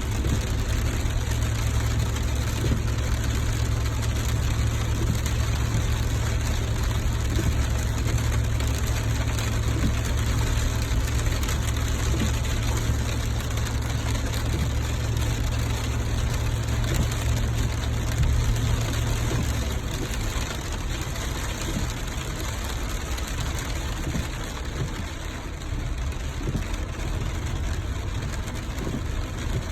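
Rain hissing steadily over a vehicle engine's low rumble. The rumble drops away about two-thirds of the way through, leaving mostly the rain.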